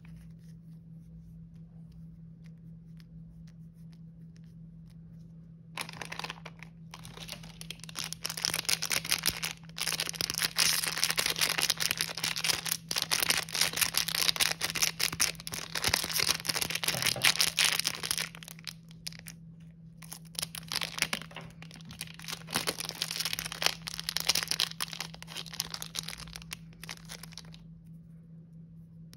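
Crinkly plastic lollipop wrapper being handled and torn open. It starts about six seconds in with dense crackling and rustling and eases off near the end, after faint small ticks at the start.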